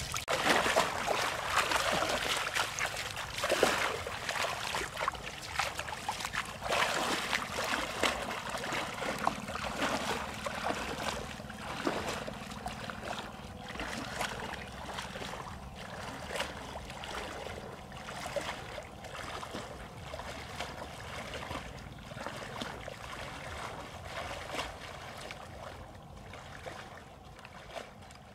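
A person wading through knee-deep floodwater, the water sloshing and splashing with each stride, growing fainter as the wader moves away.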